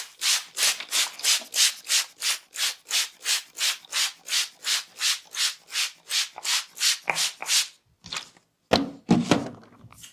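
Massage: hands rubbing briskly in a steady rhythm, about three strokes a second. Near the end the rhythm breaks off into a few louder, heavier strokes.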